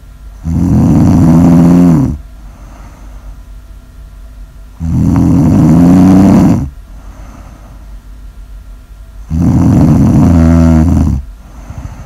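A sleeping person snoring: three loud snores, each about two seconds long, coming roughly every four and a half seconds, with much quieter stretches between.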